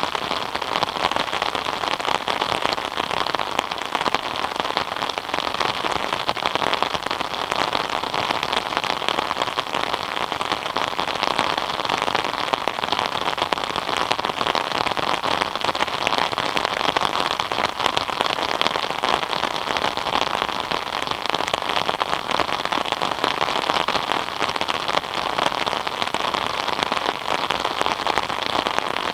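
Steady rain falling, a dense, unbroken patter of many small drop impacts.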